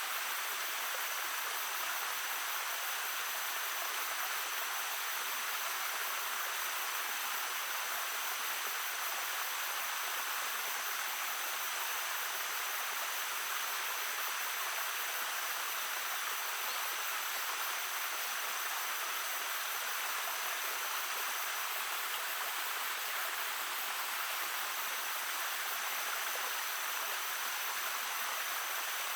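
Shallow brook babbling steadily, an even rush of running water over stones.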